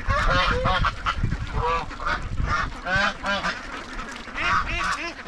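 Domestic geese honking over and over, a rapid run of overlapping calls, with ducks calling among them.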